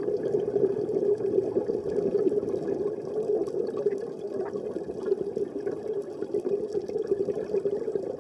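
Underwater sound of a scuba diver's regulator: exhaled bubbles gurgling and bubbling, over a steady hum.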